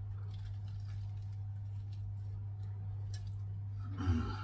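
A man chewing a mouthful of burger, faint wet mouth clicks over a steady low hum, with a short louder noise near the end.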